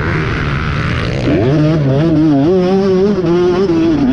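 Motocross bike engine heard onboard while riding: a rushing noise with the engine low for about the first second, then the revs climb sharply and the engine runs hard under throttle, its pitch wavering, with a brief dip near the end.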